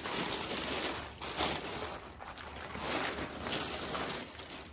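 Packaging rustling and crinkling as it is handled, a steady crackly rustle that eases off near the end.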